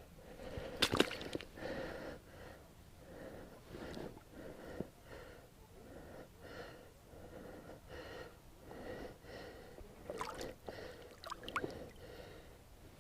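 A person breathing hard and audibly, about one breath a second. There are a few sharp knocks, like handling sounds, about a second in and again near the end.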